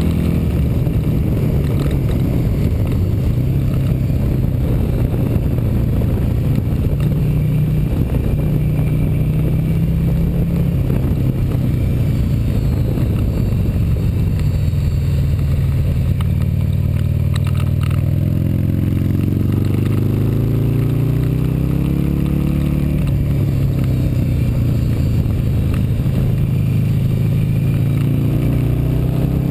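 Motorcycle engine heard close up from the bike itself under hard riding. The pitch holds fairly steady for a long stretch, then rises in a series of climbs past the middle and again near the end as the bike accelerates.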